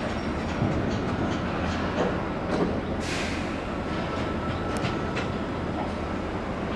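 High-rise apartment construction site machinery: a steady low rumble with scattered metal knocks and clanks, and a brief hiss about three seconds in.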